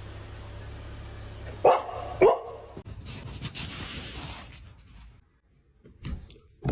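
A dog barking twice, two short barks about half a second apart, over a low steady hum.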